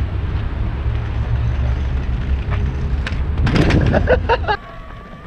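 Kick scooter ridden fast over paving: a low rumble of wheels and wind on the microphone, with a few clicks and a short voice about three and a half seconds in. The rumble cuts off suddenly near the end, leaving a quieter background with a faint steady tone.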